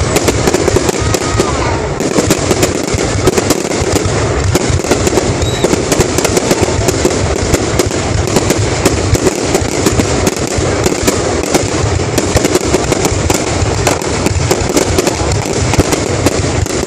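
Aerial fireworks display: a dense, continuous barrage of shell bursts and crackling, many sharp cracks a second without a pause.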